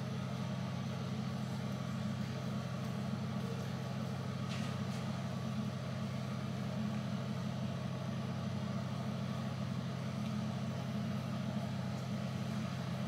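Steady low hum, like a small motor running, with a faint brief rustle about four and a half seconds in.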